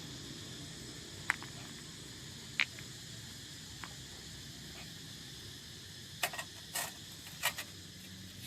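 Sharp clicks and knocks of rocks being handled and set under a portable gas stove to prop it up. There are a few single knocks, then a quick cluster about six to seven and a half seconds in, over a steady background hiss.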